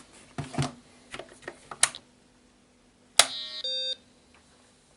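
A few soft clicks, then a sharp click about three seconds in, followed at once by the BBC Micro's start-up beep: a short steady tone lasting about a third of a second, sounded as the machine boots again.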